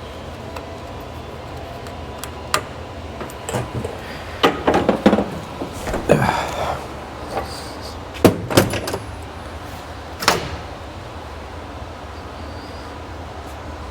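Scattered metal clanks, knocks and short rattles as a part of the Humvee's body is worked loose and comes off, loudest about five, eight and ten seconds in.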